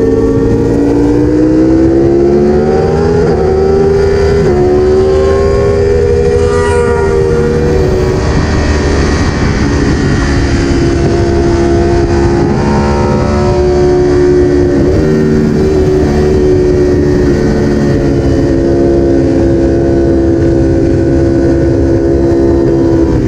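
Superbike engine at high revs on track, heard on board over rushing air. Its pitch climbs over the first few seconds, then holds high with brief dips about five and fifteen seconds in.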